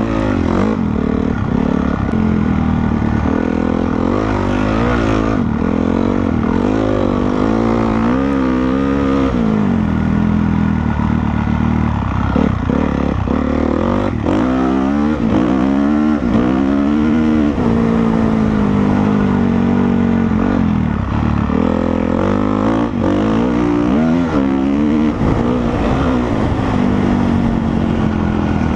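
Honda CRF450R's single-cylinder four-stroke engine under hard riding, its pitch climbing and dropping again and again as the throttle is opened and closed.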